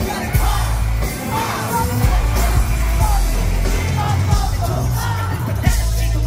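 Live K-pop performance over a festival sound system: a heavy, bass-driven beat with vocals on top, recorded from the crowd.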